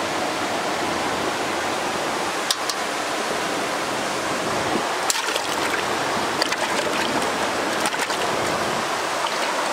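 Steady rush of flowing river water, with a few short sharp clicks over it.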